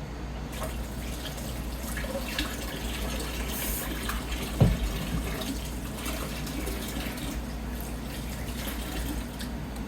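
Kitchen tap running water into the sink while hands are washed, with small clatters and one sharp knock about halfway through.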